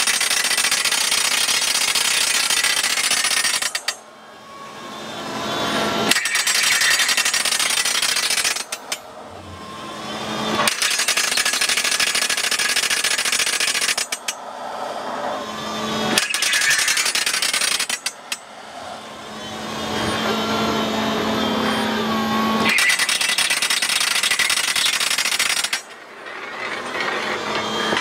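Rock drill on a tracked drilling rig hammering a drill rod into rock, cutting out abruptly five times and building back up after each stop. The stops are the rig's electronic protection cage halting the drill when its photocell beam is broken.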